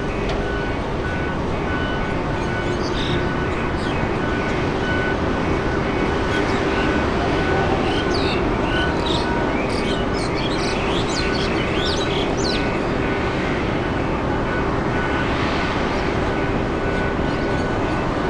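A large engine running steadily: a loud, even rumble with a held hum that does not rise or fall. Birds chirp over it for several seconds in the middle.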